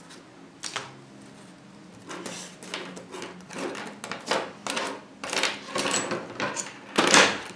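Paper pattern sheets and a metal ruler being handled on a table: a sharp knock under a second in, then a run of rustles and light clatters about every half second, the loudest near the end.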